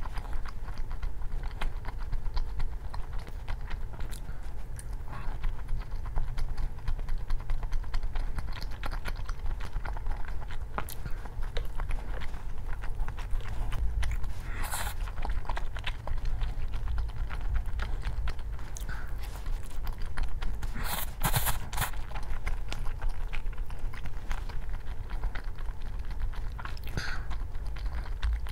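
Close-miked chewing and biting, with many small clicks and a few louder crunching or clattering moments, about halfway through and again about two-thirds of the way through, over a steady low hum.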